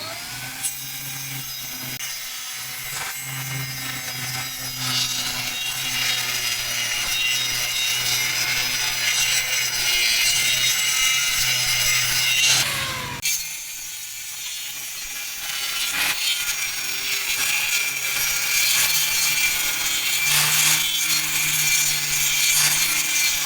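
Woodworking power tool running and cutting across a wood surface to level it: a steady motor hum under a dense hissing rasp of the cutting. It cuts off sharply about halfway through and builds back up a few seconds later.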